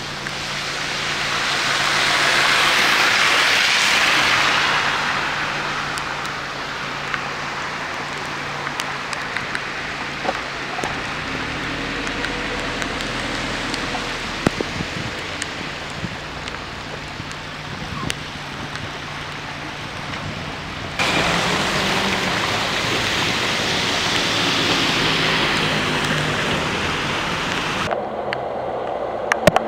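Rain on a wet street, with car tyres hissing on the wet road as vehicles pass, growing louder and fading twice, over a steady low hum. The sound changes abruptly twice, near the middle and again near the end.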